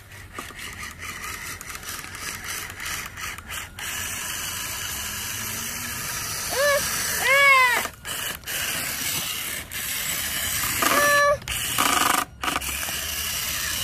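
A radio-controlled toy monster truck's small electric motor whines as it drives, with a mechanical rattle and breaks where it stops and starts. Two short rising-and-falling high-pitched vocal sounds come just before the middle, and a shorter one follows about three-quarters of the way through.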